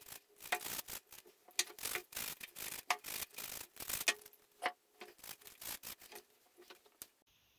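Stiff bristle brush scrubbing small wet metal gears, in quick, irregular rasping strokes with a few light clicks. The scrubbing cuts off suddenly near the end.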